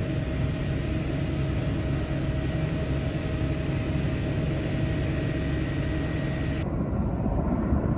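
Steady engine drone with a faint high whine above it. The upper hiss drops away abruptly near the end.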